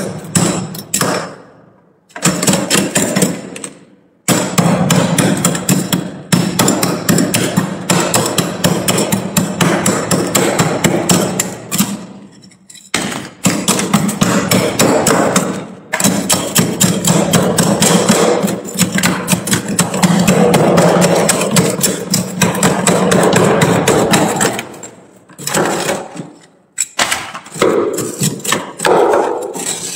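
A metal spoon scraping and chipping thick frost off the shelves inside a freezer in rapid strokes. The scraping comes in runs of several seconds, broken by a few short pauses.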